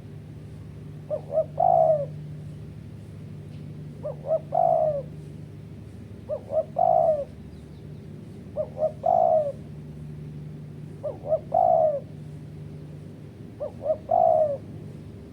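Spotted dove (tekukur) cooing its repeated call six times, about every two and a half seconds: two short notes and then a longer, falling note each time.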